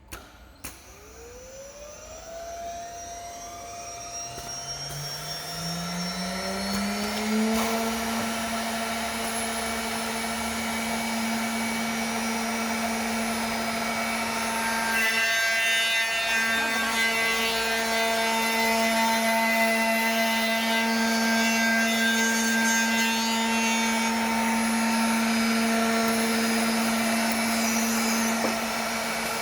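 Spindle motors of an automatic four-axis double-sided milling machine spinning up, a rising whine over the first seven seconds or so that settles into a steady high whine. About halfway through, more steady tones join in and the machine runs on.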